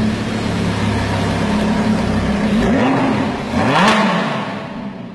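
Lamborghini Huracán's V10 idling, then revved twice, its pitch rising and falling, the louder rev about four seconds in, before the sound fades as the car pulls away.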